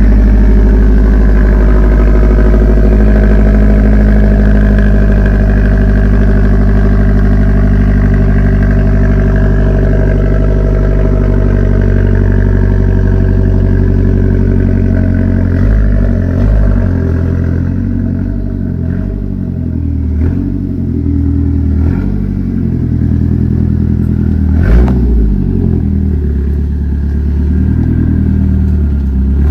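Mazdaspeed 3's turbocharged 2.3-litre four-cylinder engine running: steady for the first half, then uneven and pulsing about halfway through as the car is moved. A single sharp knock comes near the end.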